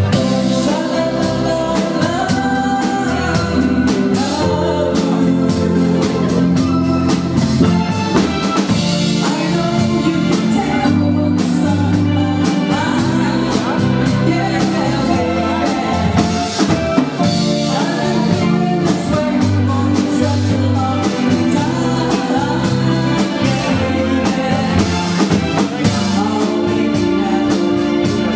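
Cover band playing a song, with a drum kit keeping a steady beat, low held bass notes and a singer's voice over the top.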